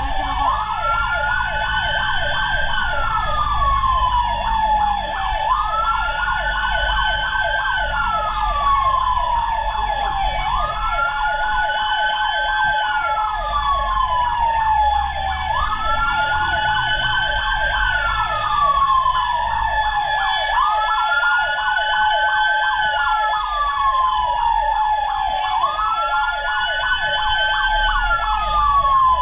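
Fire truck siren wailing, its pitch shooting up quickly then sliding slowly down, about every five seconds. Over it run a steady tone and a rapid pulsing, with a low engine rumble underneath.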